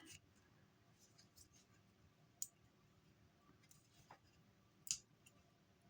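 Near silence with a few faint, sharp clicks from a reflex sight being handled, the clearest about two and a half seconds in and just before five seconds in.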